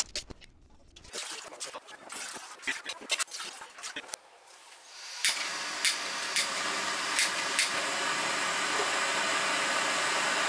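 Light clinks and knocks of cookware being handled, then about halfway through, high-output camping gas burners are lit with several sharp lighter clicks and settle into a steady rushing hiss of gas flame.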